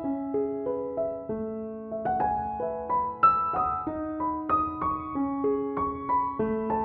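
Background music: a slow, gentle piano melody of single notes that ring and fade.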